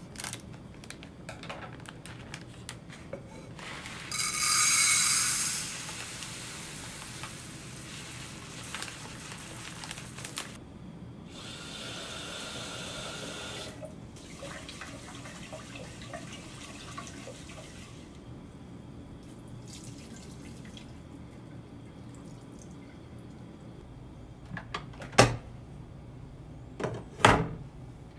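Kitchen tap running into a rice cooker's inner pot as rice is washed, loudest in a burst a few seconds in, with water sloshing in the pot. Near the end, a few sharp knocks as the pot is handled and set into the rice cooker.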